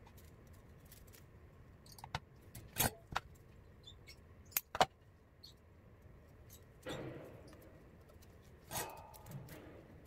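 Handling noises: a few sharp clicks and taps about two to five seconds in, then two duller, longer rustling knocks near the end.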